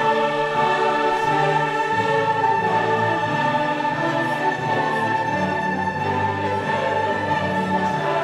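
Background music in an orchestral, choral style: a high note is held steadily throughout over lower parts that move from note to note.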